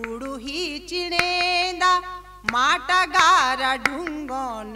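A woman singing a Garhwali folk song into a microphone, with long held notes and wavering ornaments. A few sharp clicks come through.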